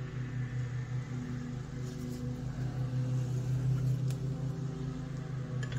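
A steady low machine hum, with a couple of faint clicks of small metal regulator parts being handled, about two and four seconds in.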